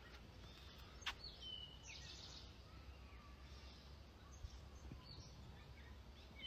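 Near silence: faint outdoor ambience with a few faint bird chirps and one sharp click about a second in.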